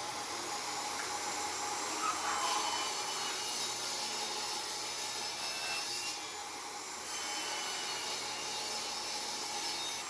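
Table saw running and cutting a groove into a wooden piece: a steady whine under the rasp of the blade in the wood. It eases briefly about six seconds in.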